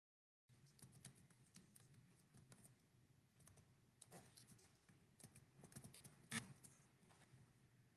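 Near silence, with faint scattered small clicks and ticks and one slightly louder click about six seconds in.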